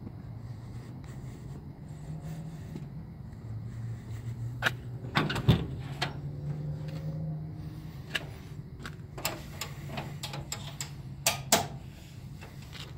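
Cab door of an old Chevrolet COE truck being unlatched and swung open: a string of metallic clicks and knocks, the loudest about halfway through and two more near the end, over the steady low hum of the truck's engine idling.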